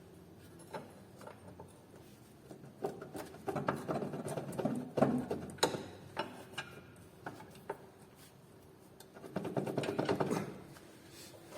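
Hand tools clicking and rattling against metal while working the ball joint out of a car's front suspension knuckle. There are scattered single clicks and two stretches of dense rattling, one starting about three seconds in and a shorter one near the end.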